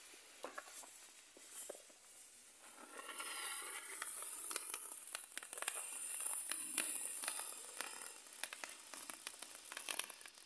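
Small silver-effect ground firework burning on the pavement: a fizzing hiss with many rapid little crackles, swelling about two to three seconds in, then stopping suddenly at the end.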